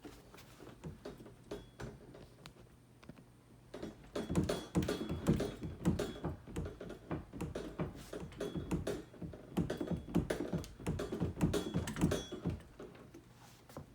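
A door being pushed and rattled repeatedly against a Brinks door stopper, giving irregular clattering knocks as the stopper slides and scrapes under it. A few light taps at first, then a dense run of louder knocks from about four seconds in until near the end.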